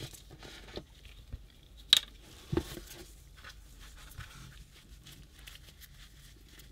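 Small handling noises from an oil jug and a cloth in gloved hands: a sharp plastic click about two seconds in, a dull knock just after, then faint rustling and dabbing as the cloth is wetted with neatsfoot oil.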